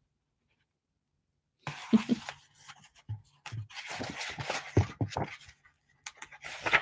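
Near silence for about a second and a half, then paper rustling and rubbing as a picture book's pages are handled and turned, with a few small soft knocks.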